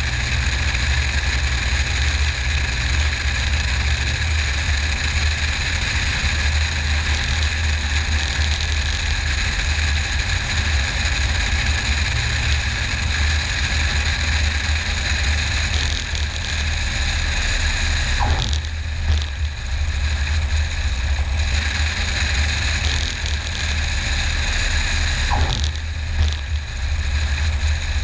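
Single-engine light airplane's piston engine and propeller droning steadily as heard inside the cockpit, with a deep hum and steady higher tones, briefly changing twice in the second half.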